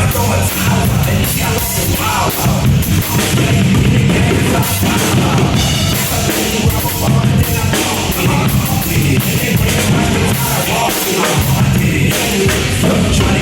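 Drum kit played through rock music with vocals, loud and continuous.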